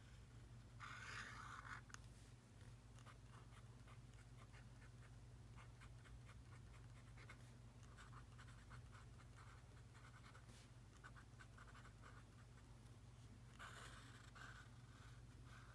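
Pen drawing and lettering on a sketchbook page, heard as faint scratching. A longer stroke comes about a second in, then many short, quick strokes as letters are written, and longer strokes again near the end.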